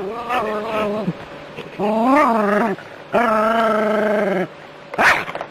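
A dog crying out in three long, drawn-out whining cries, the second rising and then falling in pitch, the third held steady, followed by a short sharp yelp near the end.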